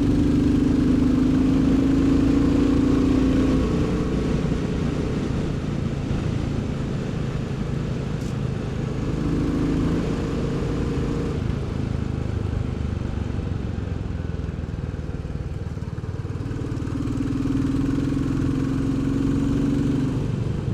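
Royal Enfield Bullet 350's single-cylinder engine and exhaust running as the motorcycle is ridden along, its note louder and stronger for a few seconds at the start, briefly about ten seconds in, and again near the end.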